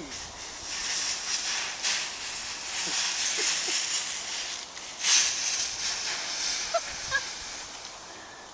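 Dry fallen leaves in a leaf pile rustling and crunching under a German shepherd's feet, with a sharper crunch about two seconds in and a louder one about five seconds in. A few brief faint squeaks come near the end.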